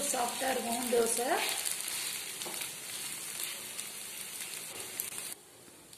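Adai dosa batter sizzling on a hot nonstick tawa, a steady frying hiss. A few short pitched sounds come near the start, and the sizzle cuts off abruptly about five seconds in.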